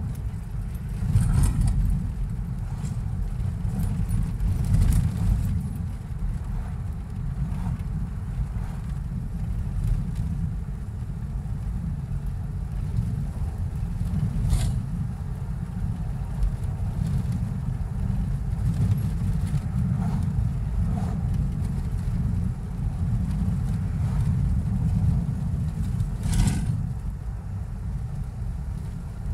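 Steady low road and engine rumble of a car driving, heard from inside the cabin, with three brief sharp clicks or knocks: about a second in, midway, and near the end.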